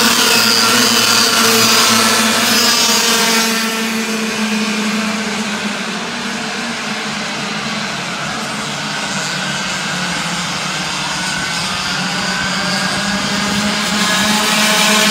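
A pack of 60cc two-stroke kart engines running at racing speed in a high-pitched whine, loudest at first, fading somewhat as the karts move off around the circuit, then growing louder again near the end as they come back round.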